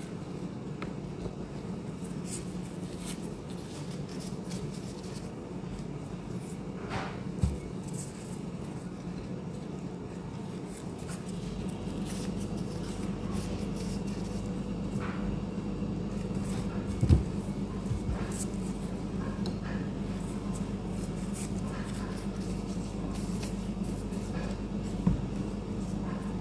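Steady low machine hum, with three soft knocks spread through it as bread dough is shaped by gloved hands on a counter.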